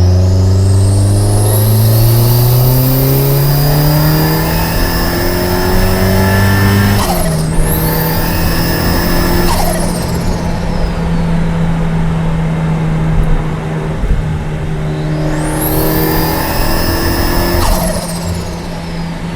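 Audi A4 B5's turbocharged 1.9-litre 20-valve four-cylinder with a K16 turbo, accelerating hard. Its pitch climbs for about seven seconds, then drops as the throttle is lifted or a gear is changed, and it holds a steady note. A high turbo whistle rises with the pull, falls away after the lift, and rises and falls again near the end.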